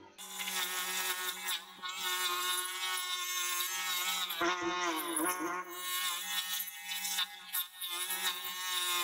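Bench grinder with a wire wheel running with a steady whine full of overtones, while rust is scrubbed off a steel bayonet held against the wheel. Around the middle the whine sags in pitch a few times with a rough scraping edge as the piece is pressed harder against the wheel and loads the motor.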